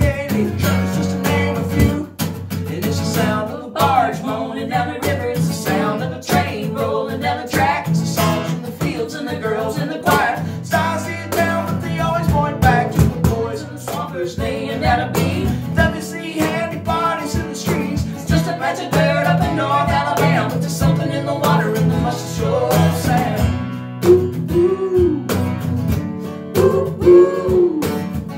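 Live acoustic song: a strummed acoustic guitar and a cajon keeping the beat, with a woman's voice singing over them.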